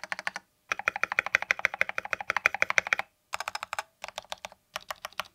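Typing on a Keychron V1 mechanical keyboard: K-Pro Brown tactile switches in a tray-mount, solid ABS plastic case with a steel plate. Rapid keystrokes come in several short runs split by brief silent gaps; the longest run is in the middle.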